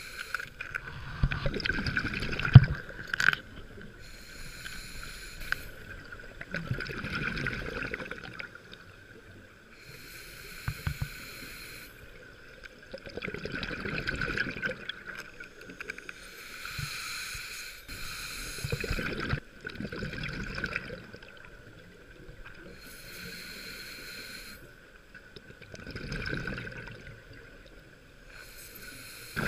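Scuba diver breathing through a regulator underwater, a slow cycle: a hissing inhale through the demand valve, then a bubbling exhale, repeating about every six or seven seconds.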